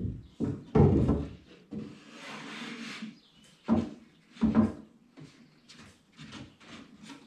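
Wooden cabinet face frame being pushed and worked into place: several knocks and bumps of wood on wood, a stretch of scraping about two seconds in, then lighter taps.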